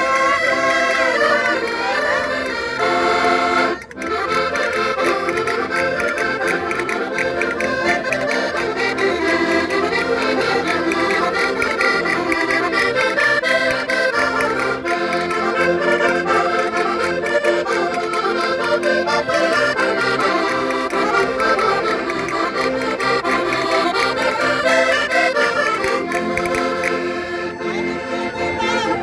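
Concertinas (Portuguese diatonic button accordions) playing a traditional folk tune together without singing, with a brief break about four seconds in.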